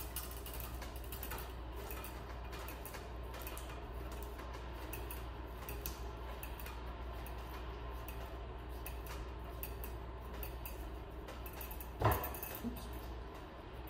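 Armature wire being twisted together by gloved hands, the strands creaking and ticking against each other over a steady low hum, with one sharp clank about twelve seconds in.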